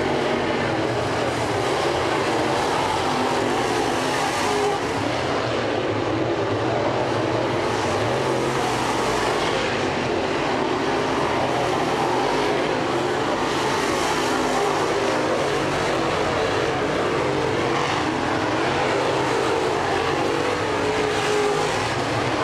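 Dirt late model race cars running at racing speed around a dirt oval, their crate V8 engines blending into one steady drone, with engine pitches shifting as the cars pass by.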